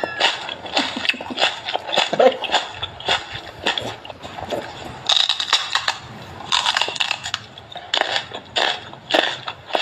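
Crisp food being bitten and chewed: a rapid, irregular run of sharp crunches, two or three a second.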